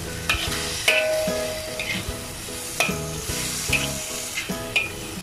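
Metal spatula scraping and tossing vegetables in a hot wok, over a steady sizzle. The scrapes come about once a second.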